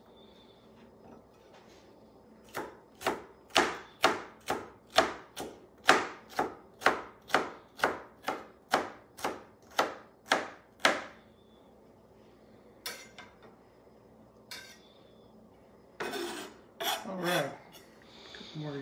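Knife chopping a bell pepper on a cutting board: a steady run of about eighteen chops, roughly two a second, then a couple of single knocks and some scraping near the end.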